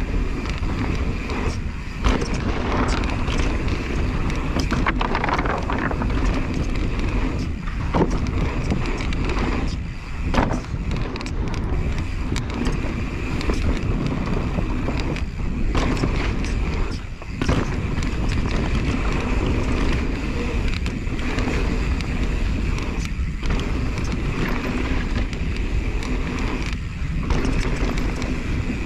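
Rocky Mountain Element mountain bike descending a dirt trail: steady rush of tyres on dirt and wind on the microphone, with frequent knocks and rattles as the bike hits bumps.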